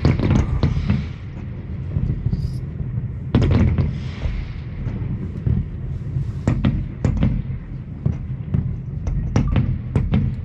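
Fireworks bursting, heard from indoors so only part of the noise comes through: a deep boom at the start and another about three and a half seconds in, then a run of quick sharp crackling pops through the second half.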